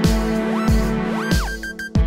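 Instrumental beat-based music: a kick drum whose pitch drops on each hit, with snare and hi-hat hits and sliding synth notes over a steady groove. The beat thins out briefly about one and a half seconds in, leaving a few short repeated high notes, before coming back in.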